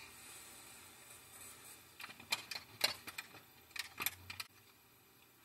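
Faint, irregular clicks and taps of painting supplies being handled on a side table, a string of light sharp ticks starting about two seconds in and lasting a couple of seconds.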